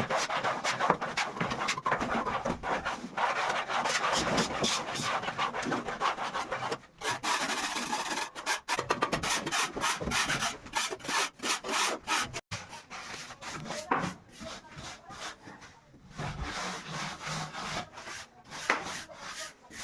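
Rapid, continuous rubbing and scraping strokes of a hand tool on a hard surface, breaking off briefly about 7 and 12 seconds in and going quieter for a few seconds before picking up again.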